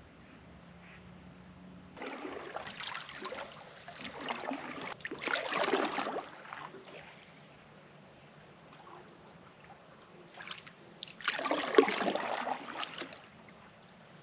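Canoe paddle strokes in the water: swishing and dripping from the paddle blade, in two bouts separated by a quieter pause, the second bout near the end the louder.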